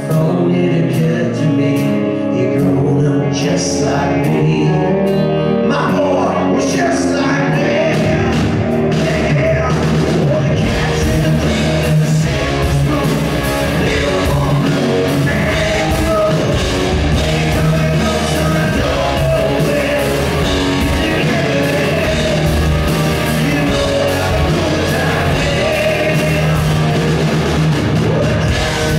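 Live rock band of electric guitars, bass guitar and drums playing, with a man singing into a microphone. The band gets fuller and denser about ten seconds in.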